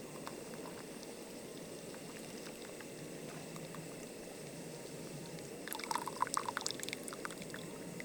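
Tea being poured, with splashing and small clinks about six seconds in, over a steady low rushing noise.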